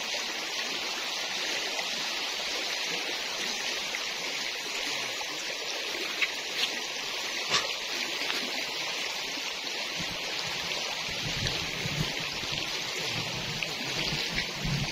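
Shallow stream running over stones: a steady rush of water, with a few sharp clicks around six to eight seconds in and a low rumble joining about ten seconds in.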